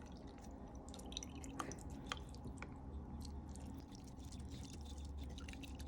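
Hot water dripping through a sifter of crushed garlic and ginger: a scatter of faint, irregular drips over a low steady hum.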